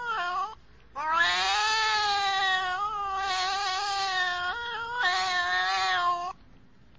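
A domestic cat yowling in long, drawn-out meows. A short call ends about half a second in, then a long one of about three and a half seconds, and a shorter one that stops about a second before the end.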